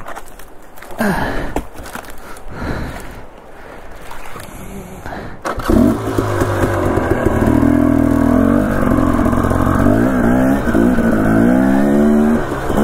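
Dirt bike engine under way on a rough trail: quieter and uneven for the first half, then loud from about halfway through, its pitch rising and falling as the throttle is opened and closed.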